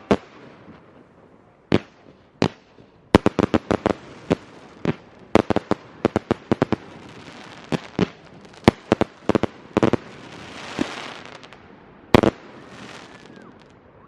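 Consumer fireworks going off: sharp bangs at irregular intervals, a rapid run of crackling reports a few seconds in, a rising fizzing crackle around ten seconds, and one more loud bang near the end.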